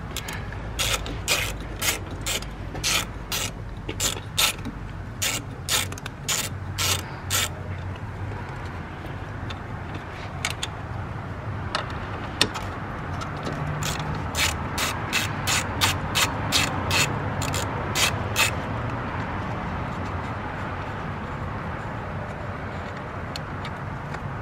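Socket ratchet wrench clicking as it backs out the bolts on the factory boost control solenoid bracket. Two runs of quick clicks, about two a second, with a pause of several seconds between them. The second run is faster and ends a few seconds before the close.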